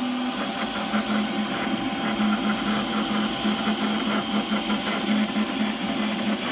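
Robo 3D R1 desktop 3D printer printing: its stepper motors whine in quick stop-start notes that jump between a few pitches as the print head moves, over a steady hiss.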